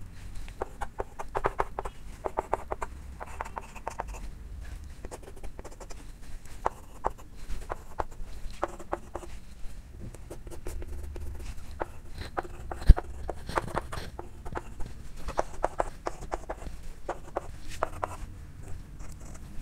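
Chalk writing on a blackboard: quick runs of taps and short scratches as figures are written, with one sharper, louder knock about two-thirds of the way through.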